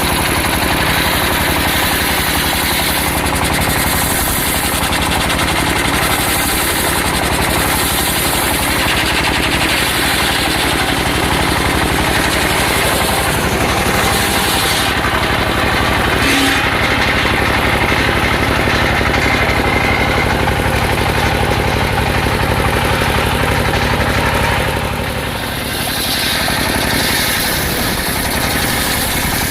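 Engine-driven circular sawmill running steadily with a rapid, even engine beat; the level dips briefly about 25 seconds in.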